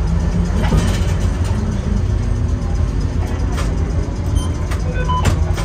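Streetcar running on its rails: a steady low rumble with a few sharp clicks, and short high squeaks near the end.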